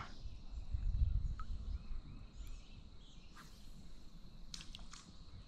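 Quiet pond-side outdoor ambience with faint bird chirps, a low rumble in the first two seconds and a few light clicks near the end.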